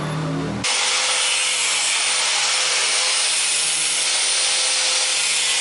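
Power saw running steadily as it cuts through wooden floorboards, starting abruptly about half a second in after a lower hum.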